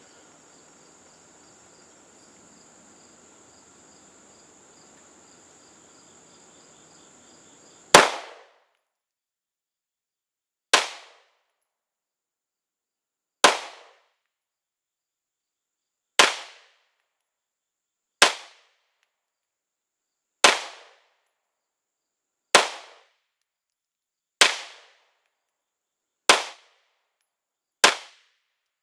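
Glock 19 Gen 5 9mm pistol fired in slow, aimed single shots: ten sharp shots about two to three seconds apart, starting about eight seconds in. Before the first shot, insects trill steadily.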